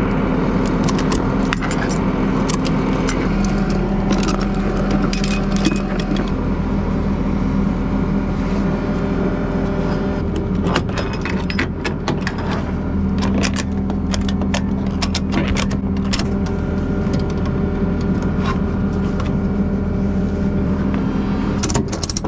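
Ratchet tie-down strap being cranked tight to secure a car's wheel to a flatbed tow truck, its ratchet clicking in repeated runs of sharp clicks. Under it a truck engine runs steadily.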